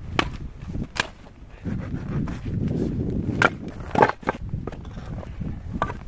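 Split firewood being handled and set down, the pieces knocking together in several sharp wooden clacks, the loudest about four seconds in, over a continuous low rumbling noise.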